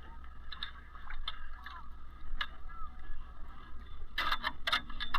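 Kayak at sea: scattered light knocks and water splashes from a paddle and gear against the hull, with a quick cluster of sharper splashes or knocks near the end, over a steady low wind rumble on the microphone.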